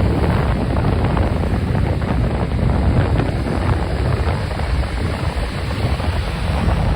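Ocean waves washing continuously, with wind buffeting the microphone as a steady low rumble.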